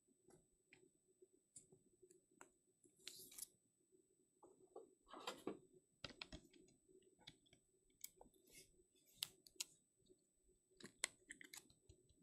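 Faint, scattered clicks and light handling noises at an irregular pace, with a few brief rustles.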